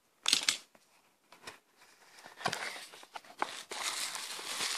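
A utility knife slitting the packing tape on a small cardboard box in one short stroke, then, from about halfway in, the box flaps opening and the bubble wrap inside crinkling and rustling as hands dig into it.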